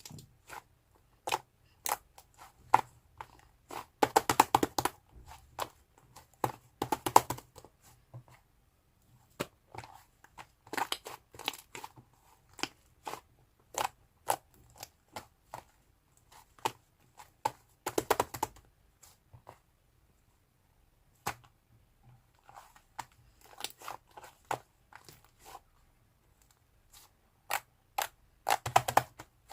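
Fluffy clay slime being squished and pressed by hand: a run of sharp, irregular clicks and pops from trapped air, with a few longer crackling bursts.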